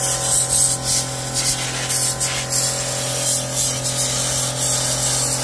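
Portable turbo tank sprayer running with a steady motor hum while a jet of water hisses out of the wand nozzle into a mini-split's blower wheel.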